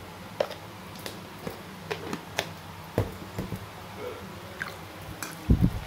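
Scattered small clicks and taps of a spoon on an enamel bowl as salt is sprinkled over raw beef liver. Near the end comes a louder, low squelching as a hand starts kneading the turmeric-and-salt coated liver.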